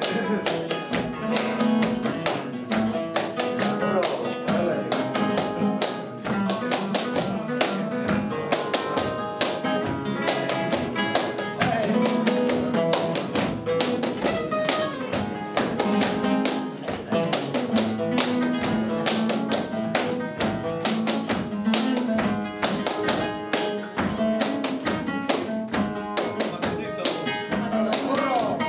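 Flamenco guitar playing tangos, accompanied by palmas: hand-clapping that keeps the compás in a steady, driving rhythm.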